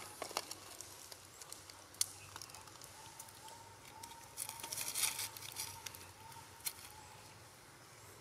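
Dry leaf litter rustling and crackling with scattered light clicks, with a louder stretch of rustling about halfway through. A faint run of short, evenly pitched notes repeats in the background from about three seconds in until nearly seven.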